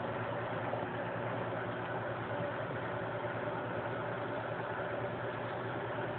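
Domestic cat purring steadily, very close to the microphone.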